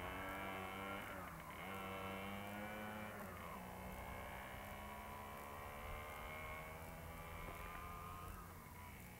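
Small two-stroke-sounding motorcycle engine pulling away with two riders aboard. Its pitch drops sharply twice in the first few seconds, as at gear changes, then holds steady while the sound fades with distance.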